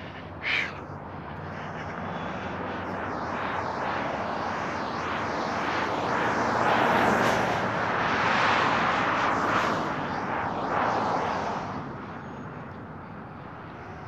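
Aircraft passing overhead: a rushing noise that swells slowly, peaks about midway and fades away over several seconds. A short, sharp, high sound about half a second in.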